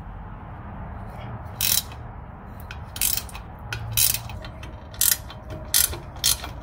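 Hand socket ratchet clicking in short runs, about seven over several seconds, as a 13 mm nut is backed off.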